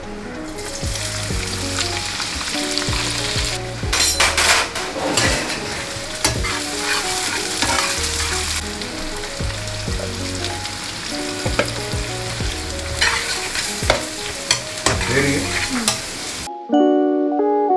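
Chopped cabbage, onion, carrot and capsicum sizzling in hot oil in a large aluminium kadhai while a slotted metal spatula stirs them, scraping and knocking against the pan. The sizzling starts about half a second in and cuts off near the end, leaving only background music.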